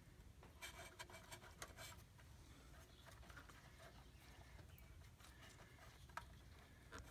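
Near silence with faint scattered clicks and rustling from hands working wiring connectors, denser in the first two seconds, with a single click about six seconds in.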